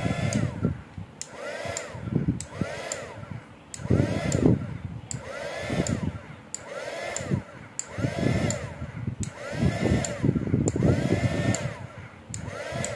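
Hair dryer blowing hot air onto a temperature-humidity sensor probe to heat it, the sound swelling and fading about every second and a half.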